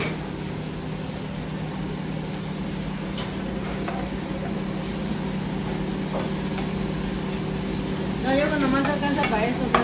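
Chilaquiles in red salsa simmering in a hot pan as a ladle stirs and scoops them, over a steady machine hum of kitchen equipment. A few light clicks of the utensils, and a voice briefly near the end.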